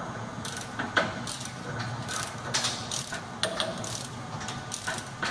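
Ratchet wrench clicking in repeated strokes, about two to three clicks a second, as the diesel engine's crankshaft is barred over by hand to turn the tone wheel past the crank sensor.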